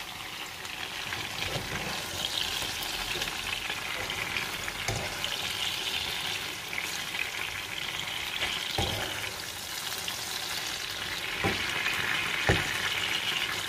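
Bell pepper pieces sizzling in oil in a nonstick frying pan, stirred with a plastic slotted spatula, with a few soft knocks of the spatula against the pan.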